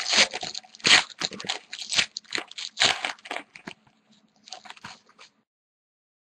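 Clear plastic wrapper of a hockey card pack crinkling and crackling as it is torn open and the cards are slid out, in a run of irregular sharp crackles that stops abruptly about five seconds in.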